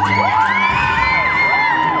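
Audience whooping and cheering over the show's dance music, several voices calling out together; the music's bass drops out partway through.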